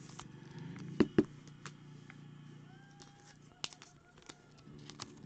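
Trading cards and plastic card holders handled on a tabletop. Two sharp clicks come about a second in, followed by scattered light clicks and ticks over a low steady hum.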